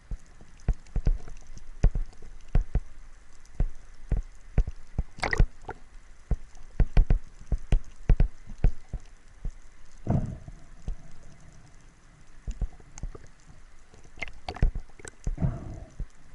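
A run of irregular knocks and clicks, a few each second, over a faint hiss, with a few longer, heavier bumps along the way.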